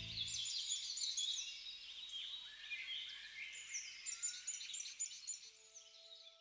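Birds chirping over a soft hiss, fading out, after the last of the end music dies away about half a second in. A few faint held tones come in near the end.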